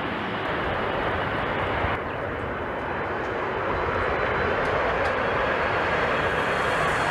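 Jet airliner's engines, a steady rush that grows gradually louder over the second half as the aircraft comes closer.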